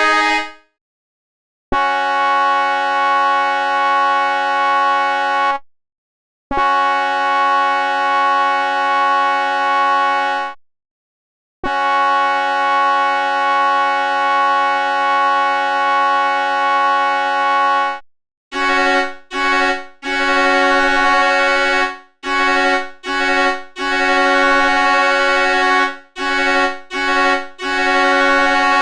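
Train horn sounding as a chord of several steady pitches: three long blasts of several seconds each with short silent gaps between them, then, in the last third, a string of short blasts broken by brief pauses.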